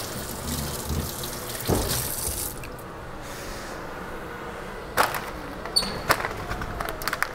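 Kitchen sink tap running, shut off about two and a half seconds in, followed by a few light clinks and knocks of kitchenware.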